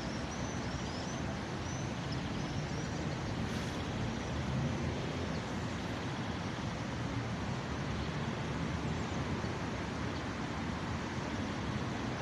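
City traffic ambience: a steady wash of road noise from passing cars and trucks, swelling slightly about four seconds in. A few short high chirps sound near the start.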